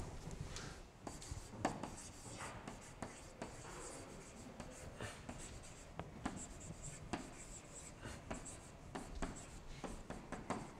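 Faint taps and short scratches of a stylus writing by hand on an interactive whiteboard screen, several strokes a second in an irregular rhythm.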